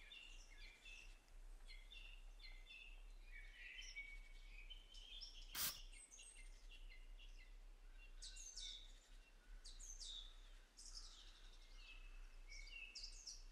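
Faint birdsong: many short, quick chirps and trills from small birds, with a single sharp click about six seconds in.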